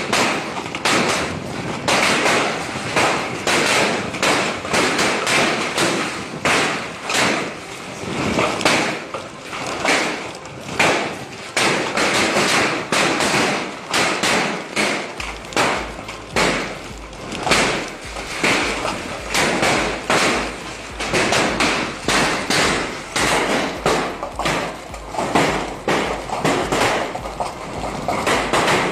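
Large hailstones pelting down: a dense, irregular stream of hard knocks and thuds over a steady rushing noise.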